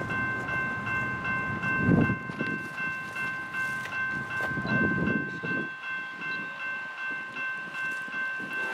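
Freight train passing, with a steady high ringing of several tones at once that pulses about three times a second over the low rumble of the train; the rumble drops away about five and a half seconds in.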